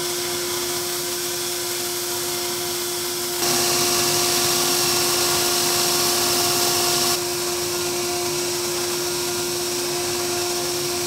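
Benchtop belt sander running with a steady motor hum while a cherry wood box is sanded against the moving belt. The sanding hiss gets louder and brighter for about four seconds in the middle.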